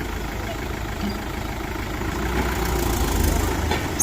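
Diesel engine of heavy earthmoving machinery running steadily. It gets louder about two seconds in, and a sharp metallic knock comes near the end.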